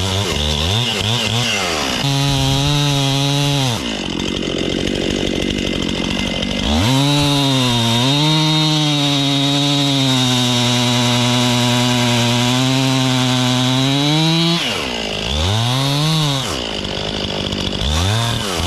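Gas chainsaw cutting into a large alder trunk: it revs up, holds a high, steady pitch through a short cut and then a long one, the pitch sagging slightly as the chain loads in the wood, and drops back between cuts. Near the end it is blipped a few times.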